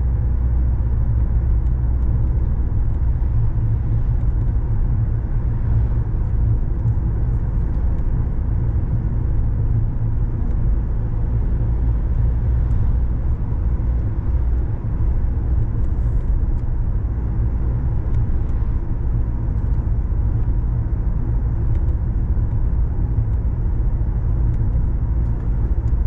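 A car driving along a city road: a steady low rumble of engine and tyre noise.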